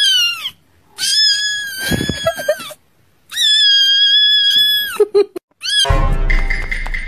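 Kitten meowing loudly in three yowling calls: the first short and falling, the next two long and held. Music starts near the end.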